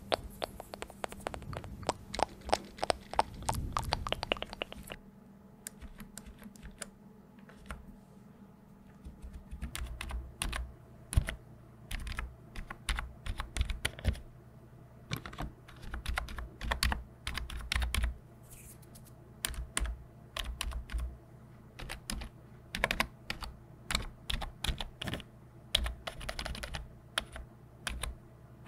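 Fingers typing on an RGB-backlit computer keyboard, close up: irregular key clicks and taps with soft low thumps. A dense run of clicks thins out about five seconds in and picks up again about ten seconds in.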